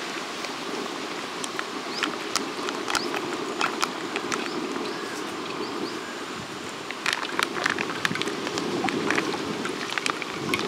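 Thin stream of cooking oil pouring into a metal kadai, a steady trickling. Scattered sharp crackles become denser from about seven seconds in, as the plastic oil pouch is handled.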